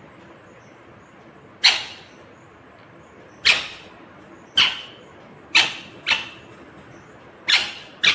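Green ringneck parakeet giving short, sharp squawks, about seven in all at irregular intervals, two of them coming in quick pairs.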